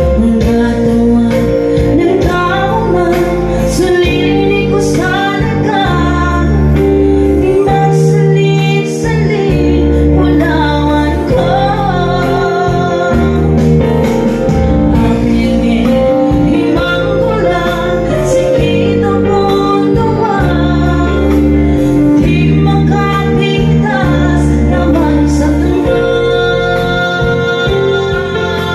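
A woman singing a song into a microphone, accompanied by a Yamaha PSR-S975 electronic keyboard playing sustained chords and a bass line.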